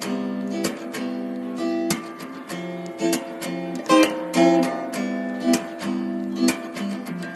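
Background music: strummed acoustic guitar with steady, regular strokes.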